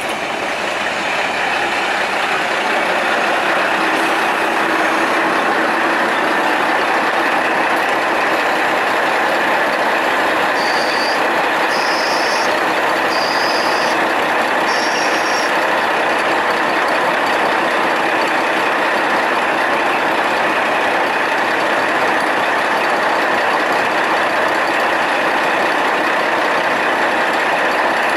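KiHa 40 diesel railcar standing at the platform with its diesel engine and equipment running, a steady loud drone that builds up over the first few seconds and then holds. A short high-pitched sound repeats four times, about a second apart, around the middle.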